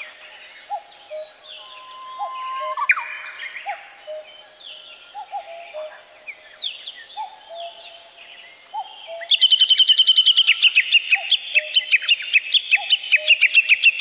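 Small songbirds calling and chirping, with many short high calls overlapping and a lower short note repeating about twice a second. About nine seconds in, a loud, fast run of repeated high chirps starts and carries on.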